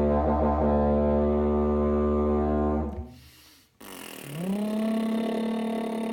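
Eucalyptus didgeridoo drone with the player's voice toning the vowel 'O' through it, stopping about three seconds in. After a short breath, the same held 'O' comes again from the voice and lips alone without the instrument, sliding up into a steady pitch.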